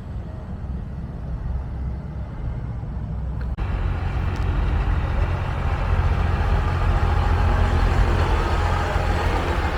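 Vehicle engines running with a steady low rumble; the sound jumps abruptly louder and fuller about three and a half seconds in.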